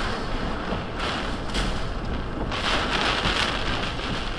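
Hurricane eyewall wind and driving rain, rushing in gusts that swell about a second and a half in and again from about halfway, with a low rumble of wind buffeting the microphone.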